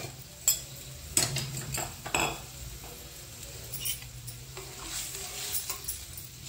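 A spoon clinking and scraping in a pan of chopped vegetables simmering in water. There are several sharp clinks in the first couple of seconds, then softer stirring over a faint simmer.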